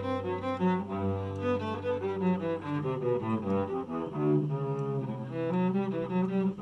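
Cello played with the bow: long low notes held under a line of shorter, moving notes above them.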